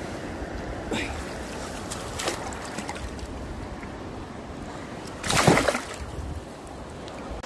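Water splashing as a coho salmon is handled in the net in the shallows, with a louder splash about five and a half seconds in, over the steady rush of the river.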